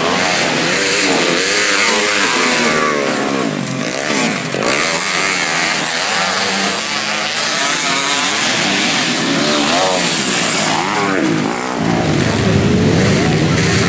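Motocross dirt bikes racing on a dirt track, several engines revving up and down through a corner, their rising and falling pitches overlapping. About twelve seconds in a louder, deeper engine sound comes in close.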